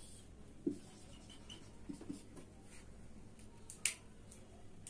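Felt-tip marker writing on a whiteboard: a few faint short strokes and taps, with one sharper click almost four seconds in.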